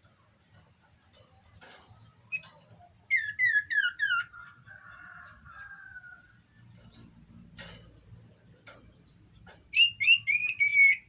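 Common iora (cipoh) in breeding condition singing. It gives two phrases of about five quick downslurred whistled notes, the first falling in pitch and running into a short buzzy note, the second near the end.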